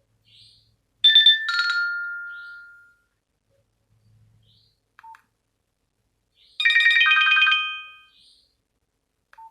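Nokia 105 ringtone playing: a short two-note chime about a second in that fades away, then after a pause a brighter phrase of several notes at once that also fades.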